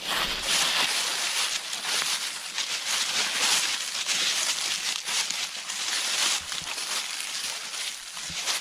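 Footsteps of people and goats crunching and rustling through a thick layer of dry fallen leaves, a steady dense crackle without a break.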